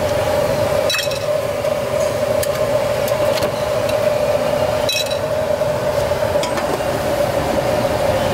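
Noodle-stall cooking: a steady hum, with a few light clinks of a metal ladle and spoon against the stock pot and bowls.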